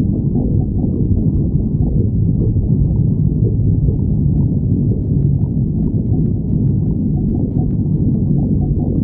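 Stomach growling: a continuous low rumble with shifting gurgles, and a few faint ticks in the second half.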